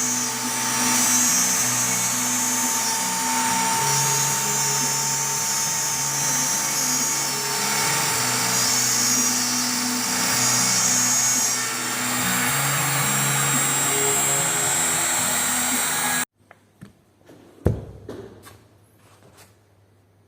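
CNC router spindle cutting aluminium composite panel: a steady high whine over shifting low motor tones that change pitch as the machine moves. It cuts off abruptly about 16 seconds in, followed by a few light clicks and one sharp knock.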